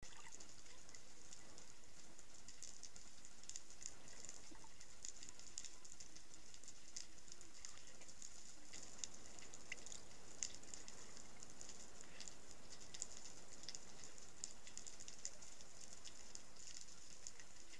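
Underwater ambience picked up by a diving camera in its housing: a steady high hiss with a dense, irregular crackle of small clicks.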